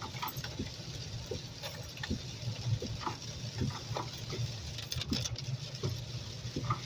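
Rumble inside a moving truck's cab on a wet road, with irregular light pattering taps, typical of rain landing on the roof and windshield.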